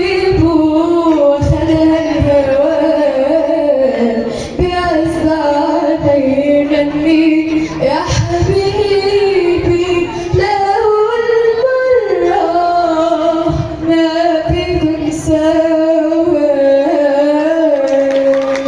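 A female voice singing a long, ornamented vocal line of held, wavering notes that slide between pitches, stopping just before the end.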